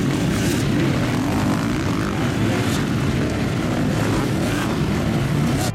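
A pack of motocross bikes racing past together, many engines at high revs rising and falling and blending into one dense, continuous drone.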